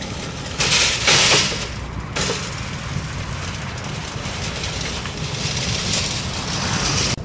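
A long train of metal shopping carts rattling and clattering as a motorized cart pusher drives it over snowy pavement. The rattle is loudest for about a second and a half near the start, then settles to a steady clatter.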